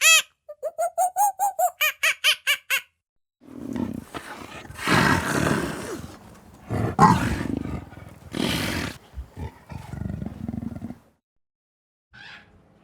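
Animal calls: a quick run of short, pitched calls about five a second, then, after a brief pause, several seconds of loud, rough, roaring calls.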